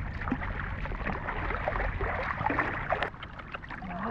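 Water sloshing and gurgling with many small splashes and clicks, over a steady low rumble.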